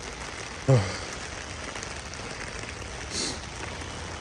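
Steady rain falling, an even hiss. A short vocal sound with falling pitch comes just under a second in, and a brief high hiss a little after three seconds.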